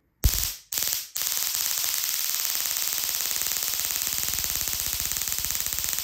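High-voltage arc from a small taser circuit run off a single AA battery, sparking against solder: a loud, rapid crackling buzz. It comes in two short bursts, then runs on without a break from about a second in.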